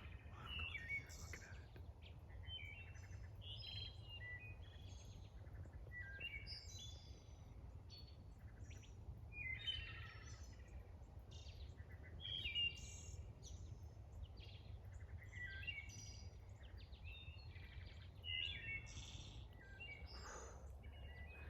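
Several songbirds chirping and calling, many short calls overlapping, over a low steady background rumble.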